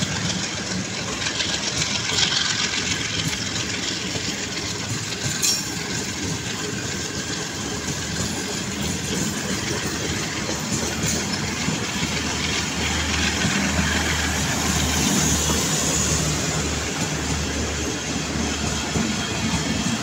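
Passenger coaches of a departing express train rolling past, their steel wheels running on the rails in a steady rumble and clatter, with one sharp click about five and a half seconds in.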